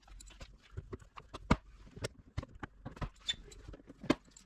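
Irregular light clicks and taps of a hand tool working plastic push darts, with a few sharper knocks: plastic-rivet pliers prying push darts out of an ATV's plastic inner fender.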